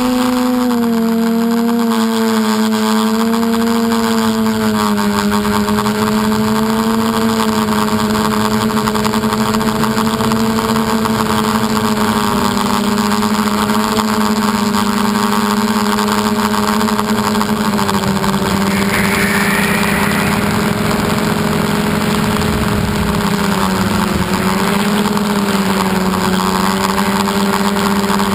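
Motor and propeller of an FPV model aircraft, heard through its onboard GoPro: a steady humming tone whose pitch drifts slightly down and up as the throttle changes, over a constant rush of air noise.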